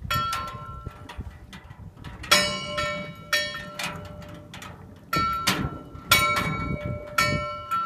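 Bell on a green navigation buoy, its clappers swung by the sea, striking at irregular intervals, about a dozen times. Each clang rings on with several clear tones before the next, over a low wash of sea noise.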